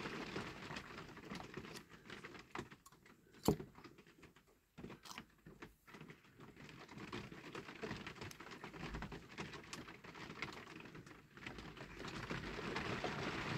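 Faint handling noise of fingers working a clear plastic windscreen onto a diecast toy car body: light rubbing and small clicks, with one sharp click about three and a half seconds in.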